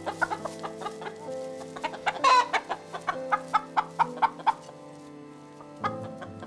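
Chickens clucking in a run of short, irregular clucks, with one louder wavering squawk about two seconds in, over sustained music notes.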